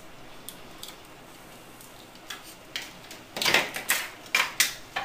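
Light clicks and knocks from hands handling the electric latch's wiring box and hardware: a few faint scattered taps, then a quicker run of sharper knocks in the second half.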